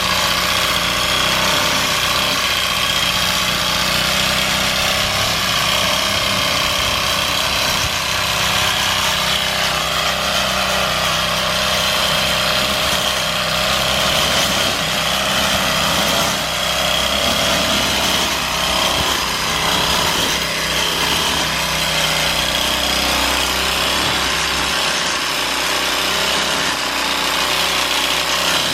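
A small engine running steadily at constant speed, with a high, even whine over a lower hum.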